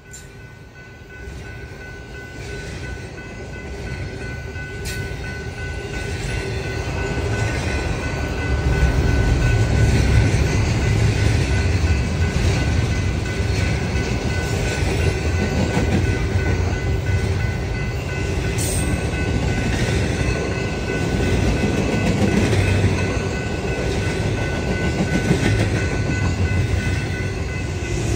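Double-stack intermodal freight train rolling past: a steady rumble and rattle of well cars and wheels on rail that grows louder over the first nine seconds or so, then holds, with a thin steady high tone over it.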